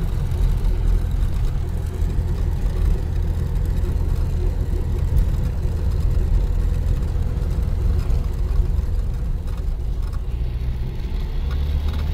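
UAZ-469 4x4 engine running steadily while the vehicle drives, a continuous low engine drone.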